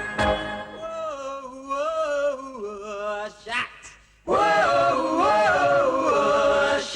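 Male voices singing held, wavering notes in two phrases, with a short break about four seconds in.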